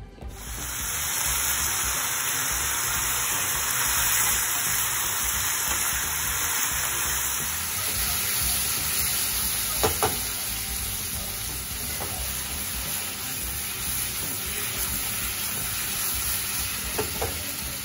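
Strips of vegetables sizzling in a hot non-stick wok, a steady loud hiss as they are stir-fried with a wooden spatula. Two brief knocks, about ten seconds in and near the end.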